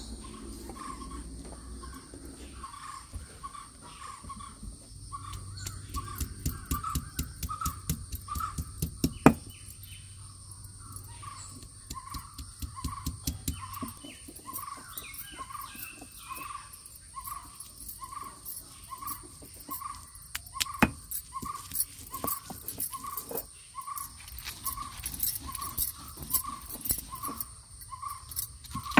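Stone roller worked over a flat grinding stone, crushing grated coconut, shallots and green chillies with scraping and irregular stony clicks and knocks. Over it a bird repeats one short call note about once every two-thirds of a second, and a faint steady high whine runs underneath.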